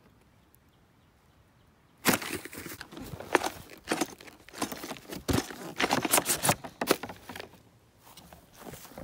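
A cardboard box being pulled open and handled: quiet at first, then from about two seconds in a run of sharp crinkling, tearing and rustling noises that eases off near the end.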